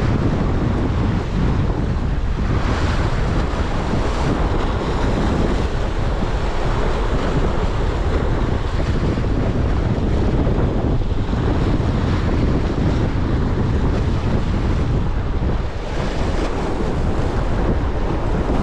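Sea swell washing and breaking over shoreline rocks, with wind buffeting the microphone in a steady low rumble.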